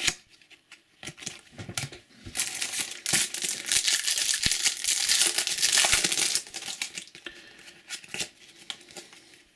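A foil trading-card packet (a Topps Match Attax booster pack) being torn open: a few seconds of loud crinkling and tearing starting a couple of seconds in. Quieter clicks and rustles follow as the cards are handled.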